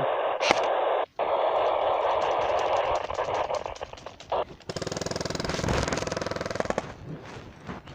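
An airsoft gun fires a full-auto burst of rapid, evenly spaced shots lasting about two seconds, past the middle. Before it there is a steady hiss that drops out for a moment about a second in.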